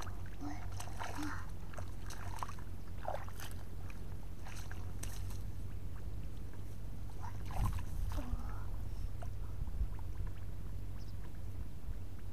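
Hands sloshing and splashing through shallow muddy water and rice stubble, with scattered short wet splashes over a steady low rumble.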